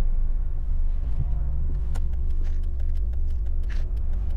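Steady low rumble of a car running, heard from inside its cabin.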